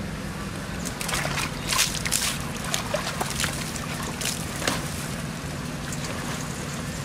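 Water splashing and sloshing in a plastic tub as a bathing macaque thrashes about, with water spilling over the rim. The splashes come in a quick run for about four seconds starting a second in. A steady low hum runs underneath.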